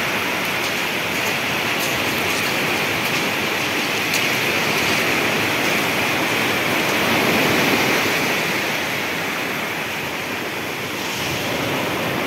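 Steady rush of water: a continuous, even hiss with no breaks, swelling slightly in the middle.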